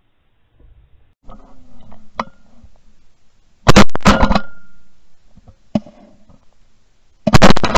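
Two very loud shotgun blasts from the gun carrying the camera, the first about three and a half seconds in and the second near the end. Each is sharp and fades over about a second, with fainter scattered sounds before the first.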